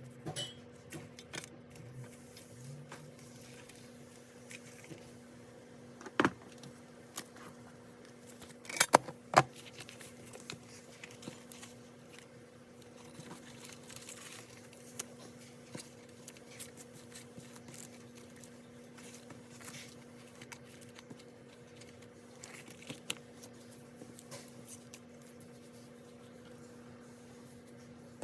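Scattered light clicks and taps of hands handling a ring-bound planner and stationery on a desk, with a few sharper clicks about six and nine seconds in. A steady low electrical hum runs underneath.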